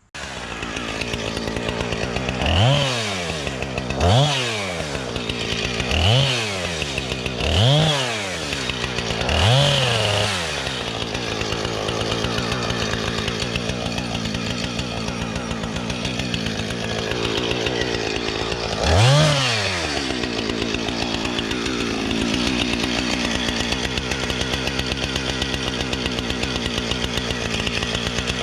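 Husqvarna 455 Rancher two-stroke chainsaw running at high speed, its engine revved up and let fall five times in quick succession over the first ten seconds and once more a little past halfway, otherwise running steadily, as it fells a black birch.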